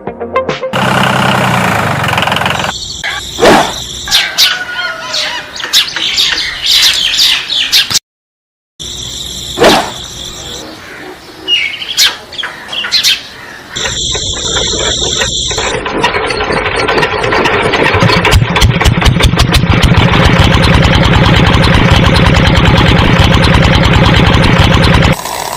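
Small electric motors of a miniature DIY farm machine model running, with short squeals and clatter. In the second half a motor runs steadily with a fast even rattle, which grows stronger partway through and stops suddenly near the end.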